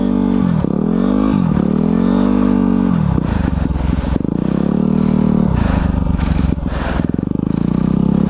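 Single-cylinder four-stroke dirt bike engine revving up and down while being ridden through snow, its revs dropping and climbing again several times, with a longer steady climb about halfway through.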